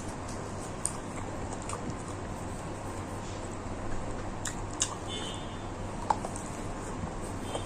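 A person chewing and eating: scattered short mouth clicks and smacks, a handful over several seconds, over a steady background hiss and low hum.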